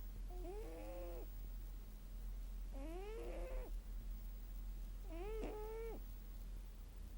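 Pet cat snoring in its sleep: three short, pitched snores rising in pitch, one on each breath about every two and a half seconds. They are faint, over a steady low hum.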